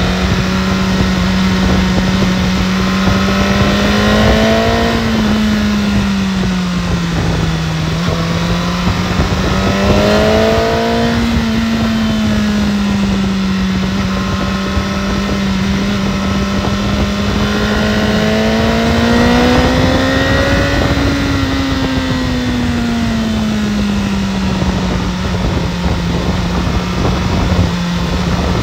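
BMW S1000RR's inline-four engine running under way at a fairly steady speed, its pitch swelling gently and falling back three times as the throttle is rolled on and eased, over a steady rushing noise.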